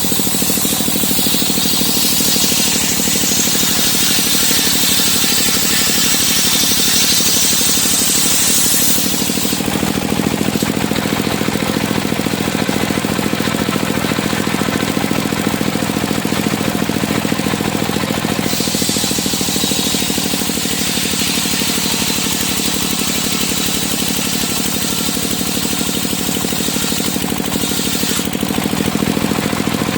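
Engine-driven circular sawmill running steadily, its blade cutting through timber twice, each cut a loud high hiss lasting about nine seconds, with the engine going on alone in between.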